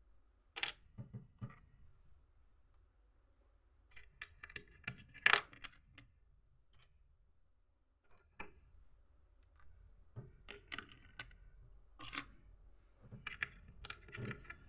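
Plastic Lego bricks being handled, clicking and rattling against each other in irregular bursts, the loudest cluster about five seconds in.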